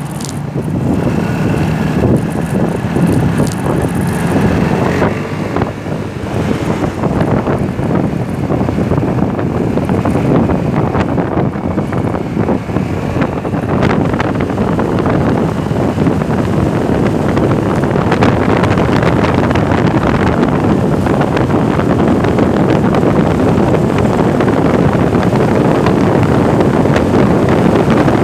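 Wind rushing over the microphone of a moving Vespa 300 Sei Giorni scooter, with the scooter's single-cylinder engine running underneath. The noise gets louder over the first half as the scooter picks up speed, then holds steady.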